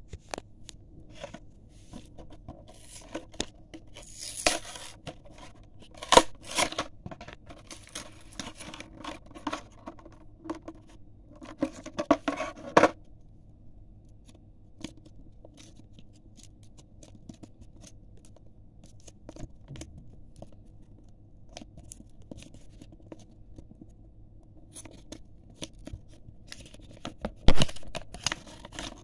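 A Majorette toy-car blister pack being torn open by hand: cardboard ripping and clear plastic clicking and crackling in busy bursts through the first dozen seconds, then quieter handling. A single sharp knock comes near the end, followed by more crackling.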